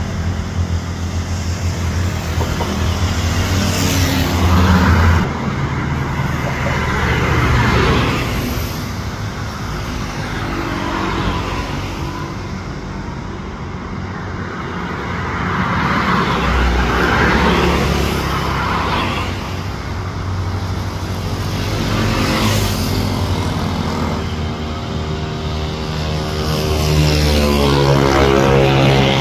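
Road traffic passing close by: cars and motorbikes whoosh past one after another in rising and falling swells. Near the end an engine note climbs steadily in pitch as a diesel railcar train draws alongside.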